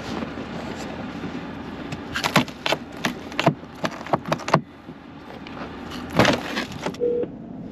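Gloved hand working the frozen, snow-caked door handle and door of a Chevrolet Silverado pickup: a run of sharp clicks and cracks, with the loudest crack about six seconds in as the iced-up door is pulled, then a short beep near the end.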